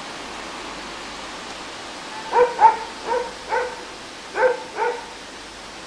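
A dog barking: six short barks in three pairs, starting about two seconds in, over a steady hiss.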